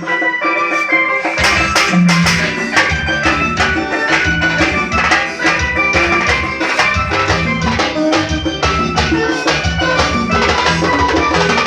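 Band music with drum kit and percussion keeping a steady beat under pitched instruments. The bass drops out for about the first second and a half, then comes back in.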